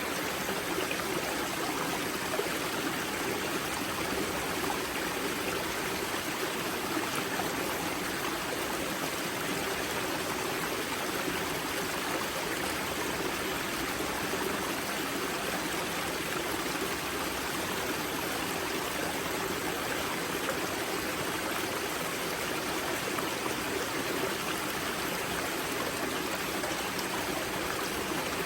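Spring-fed mountain river rushing and splashing over rocks at its wellhead: a steady, even flowing-water sound with no change.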